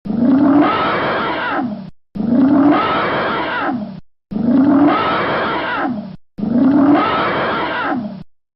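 An animal roar sound effect: the same two-second call, opening with a rising cry, repeated four times identically with short silent gaps between, a looped clip.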